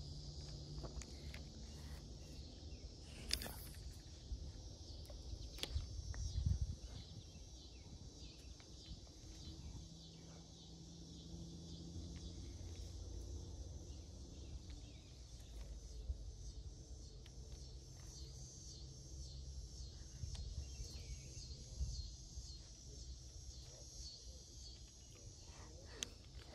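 Faint pond-bank ambience: insects chirping over a low rumble, with scattered clicks and a brief swish from handling a spinning rod and open-face reel as the lure is cast and reeled in.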